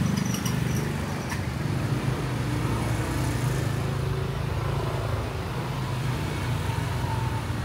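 Low, steady engine rumble of motor traffic.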